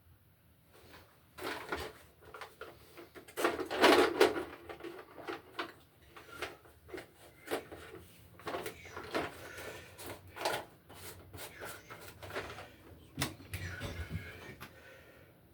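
Irregular clicks, taps and short rattles of hand tools and stiff electrical wires being handled while working on a receptacle box, with a louder rattling scrape about four seconds in.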